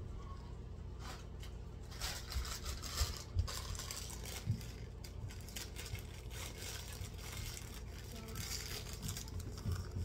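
Rustling and crinkling of bags and packaging being handled as a diaper bag is packed, with a few light knocks, over a steady low hum.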